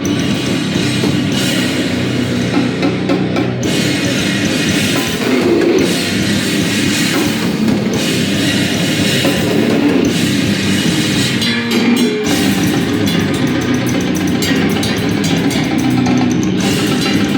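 A heavy band playing live and loud: drum kit and distorted guitar in a dense, noisy wall of sound, with a few brief drops in the texture.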